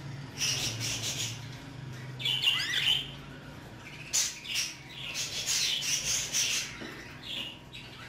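Budgerigar chirping and chattering in short bursts, with a quick warbling call a little over two seconds in; a faint low hum sits underneath for the first few seconds.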